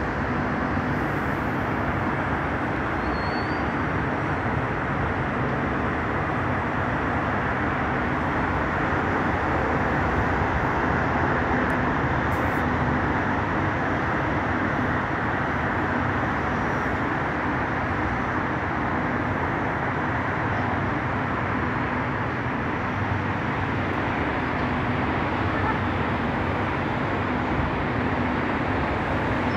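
Steady roar of distant city highway traffic, an even wash of noise with no single passing vehicle standing out.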